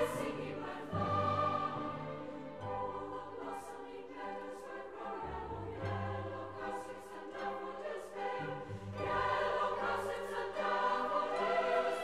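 Women's choir singing a slow, lyrical part-song with orchestral accompaniment; the music swells louder about three-quarters of the way through.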